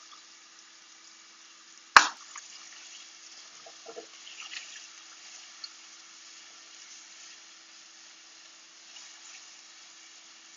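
Diced onion sizzling faintly in olive oil in a stainless steel pot, being stirred with a spatula, with a faint steady hum underneath. A single sharp knock about two seconds in is the loudest sound, followed by a few light clicks a couple of seconds later.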